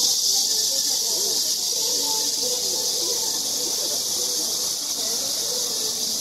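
A steady high hiss that does not change, with faint background voices underneath.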